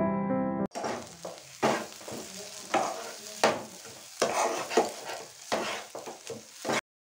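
Flat spatula scraping and stirring a thick green pea paste frying in a pan: repeated, uneven scrapes over a light sizzle. Piano music plays for the first moment, and the sound cuts off suddenly near the end.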